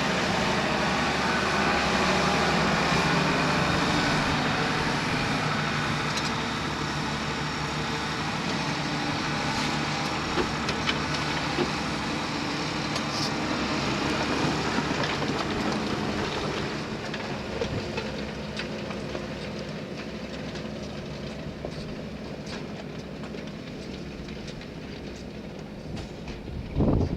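Valtra tractor's diesel engine running steadily under load while ploughing, with some rattle, fading gradually as it moves away.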